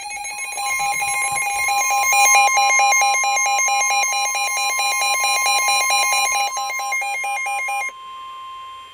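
NOAA Weather Radio warning alarm tone, a steady high tone, sounding together with weather radio receivers' rapid pulsing alert beeps. The beeps cut off about a second before the end while the steady tone holds. The alarm signals an incoming warning broadcast, here a severe thunderstorm warning.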